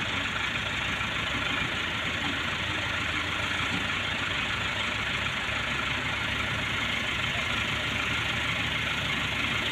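Tractor's diesel engine running steadily at a low, even pace while pulling a heavily loaded sugarcane trailer.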